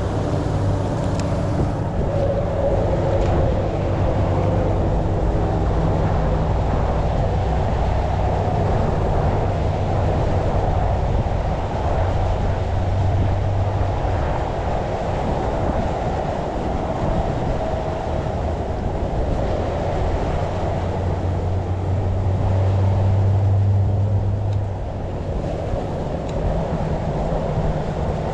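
Steady, loud, low engine-like drone with a constant hum that swells slightly twice.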